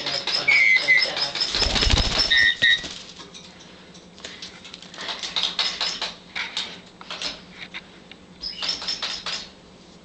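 Meyer's parrot attacking a plush toy bird: a rapid run of high, even chirps for the first two and a half seconds, with a heavy wing-flap thump about two seconds in. Then quieter scuffling, beak and claw clicks on the plush and cage wire, and another short run of chirps near the end.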